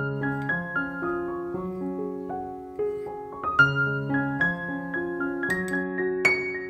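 Background piano music, with a few sharp clicks near the end.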